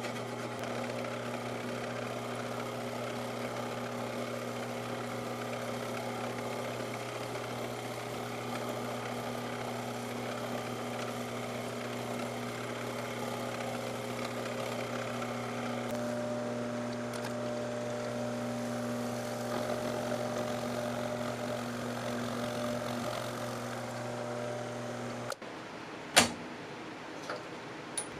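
Milling machine running with a steady hum while a slitting saw cuts a slot in a metal pulley bushing. The machine stops abruptly a few seconds before the end, followed by one sharp metallic click and two light ticks as the part is handled.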